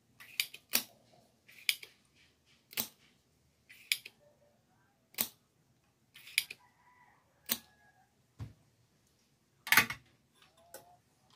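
Sharp clicks and snaps, about one a second, from hand tools at work removing a part from a CRT TV's circuit board.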